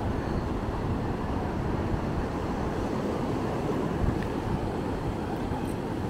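Ocean surf on a beach: a steady rush of breaking waves.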